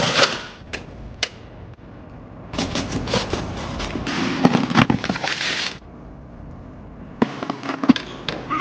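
Food packaging and containers being handled: rustling and crinkling with small clicks and knocks, in three spells, the middle one the longest.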